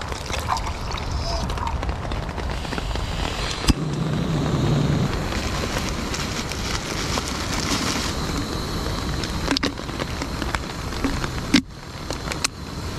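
Steady hiss of rain on a tarp mixed with a canister stove burner running, with a few sharp clicks and knocks as coffee gear is handled.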